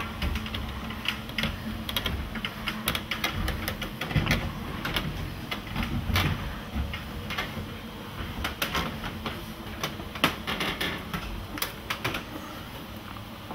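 Irregular knocks and clicks of someone climbing a wooden ladder, feet and hands on the wooden rungs, over a low rumble.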